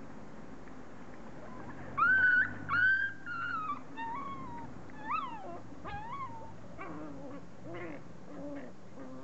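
Forty-day-old beagle puppies yelping and squealing as they play-fight: two long high whines about two seconds in, then a run of shorter squeaks, then short low growls near the end.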